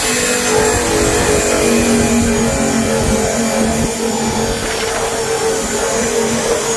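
KATSU 1250 W electric drum sander/burnisher running steadily while it works a surface, its motor hum holding a fairly constant pitch over the rasp of the drum.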